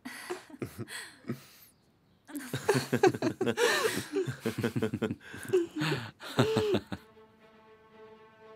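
Several people laughing and making happy, wordless sounds close together. Near the end this gives way to soft held string music.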